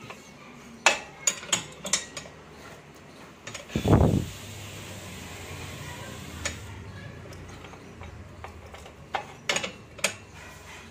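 Metal clinks and taps from fitting parts on a Royal Enfield Bullet's footrest and silencer mount by hand, with one heavier thump about four seconds in and a few more clinks near the end.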